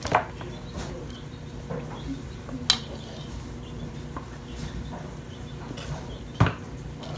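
Three sharp taps or clicks, about a second in, near the middle and near the end, with a few fainter ticks between, over a low steady hum.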